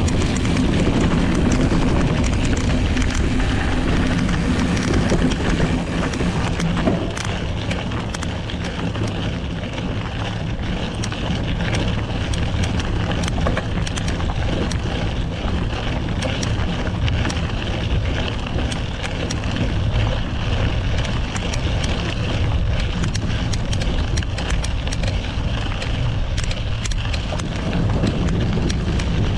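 Wind buffeting the microphone over the rumble of a knobby off-road tyre rolling on a dirt and gravel track. A run of small clicks and rattles starts about seven seconds in.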